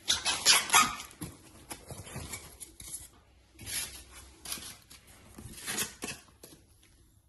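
Packaging being handled and unpacked: irregular rustling and light knocks in three bouts, the loudest in the first second.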